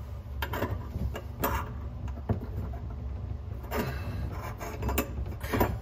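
Scattered light clicks and taps of a drain slip nut and washer being handled and fitted onto a sink tailpiece, over a steady low hum.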